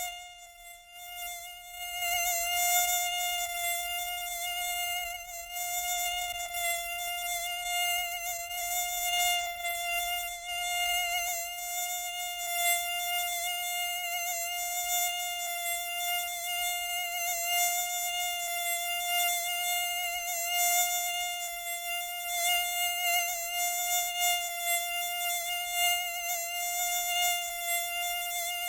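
Mosquito buzzing in flight: a steady high-pitched whine held at an almost constant pitch. It grows louder over the first couple of seconds, then carries on with small swells and dips in loudness.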